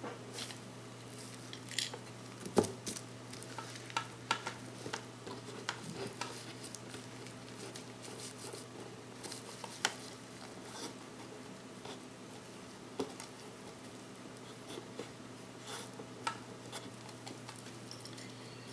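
Scattered faint clicks and light taps of watchmaker's metal tweezers and tools handling small parts of a quartz chronograph movement, over a steady low hum.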